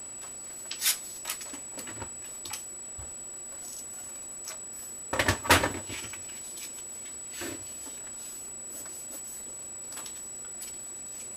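Hands handling paper and a Scotch tape glider on a tabletop: light paper rustles, a short loud burst of scraping with a knock about five seconds in, then soft rubbing as taped paper is pressed together.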